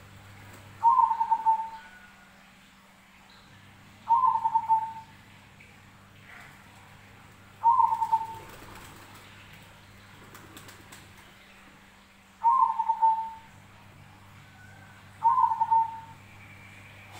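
Zebra dove (perkutut) cooing: five short trilled coos spaced about three to five seconds apart. Each is a brief higher opening note followed by a rapid stuttering coo that drops slightly in pitch, with a faint steady low hum underneath.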